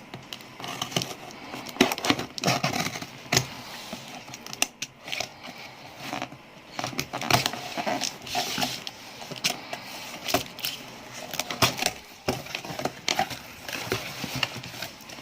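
Packaging being opened and handled by hand: plastic and cardboard crinkling and rustling, with many irregular sharp clicks and small knocks.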